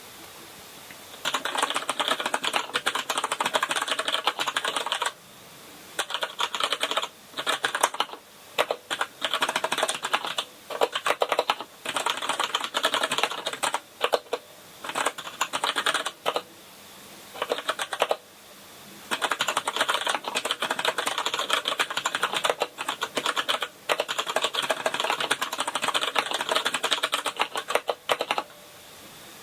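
Typing on a KINESIS Advantage contoured mechanical keyboard with Cherry MX Brown switches, which are tactile but not clicky. Keys are struck in fast runs of continuous keystrokes, starting about a second in and broken by several short pauses.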